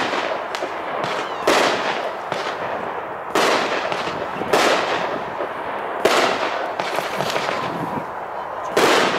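A 20-shot XL aerial repeater cake, the Red Apple Fireworks Pagoda, firing in succession. Sharp bangs come every one to two seconds, about five strong ones plus smaller pops, over a continuous noise that runs between them.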